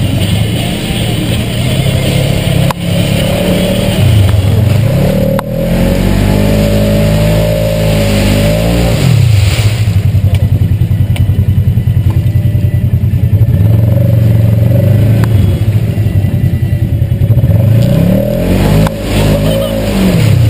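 ATV engine running close up, its revs dropping and climbing back again three times as the throttle is worked over rough trail, with a couple of sharp knocks from the machine jolting early on.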